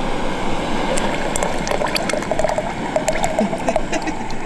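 Thick tomato soup poured from a plastic cup into a Jetboil cooking cup, with small gurgling glugs. This sits over a steady hiss, most likely the Jetboil's gas burner running to warm the soup.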